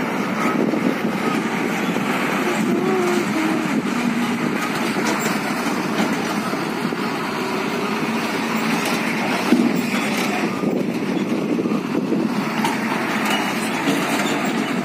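Steady truck engine noise, an even running sound without distinct beats or revving.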